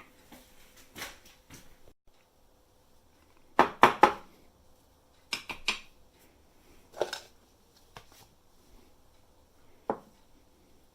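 A handful of separate plastic knocks and clicks, the loudest a quick cluster of three about four seconds in: the Krups GX 5000 burr grinder's ground-coffee box being handled and knocked about on the counter.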